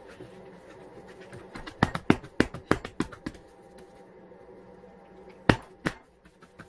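Hands patting and slapping a ball of seeded bread dough on a granite countertop while shaping it into a loaf: a quick run of sharp pats about two seconds in, then two more near the end.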